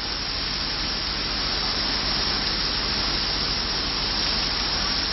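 Heavy rain pouring down, a steady, unbroken rush of water.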